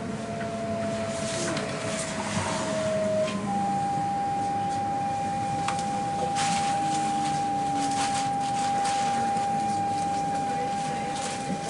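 Electric S-train's traction motors and inverter whining as the train slows at a station, heard from inside the carriage over the running rumble. The whine sinks slightly, then steps up to a higher steady tone about three seconds in, while lower motor tones slide down.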